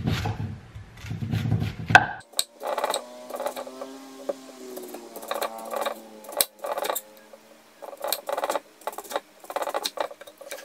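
Chef's knife slicing an onion on an end-grain wooden cutting board: an irregular run of sharp knocks as the blade cuts through and strikes the wood, up to a few strokes a second.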